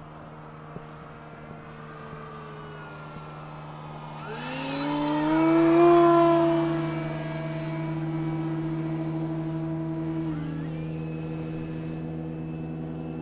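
Electric motor and propeller of an RC model airplane flying overhead, a steady whine. About four seconds in it is throttled up with a rising whine and grows loudest as the plane passes close; it stays at high throttle, then is throttled back near the ten-second mark.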